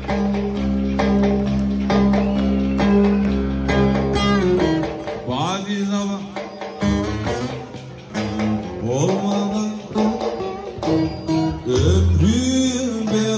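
Live band playing slow-tempo (ağırdan) Turkish folk dance music. A melody with sliding, bending notes runs over a held low drone, with plucked-string sounds in the mix.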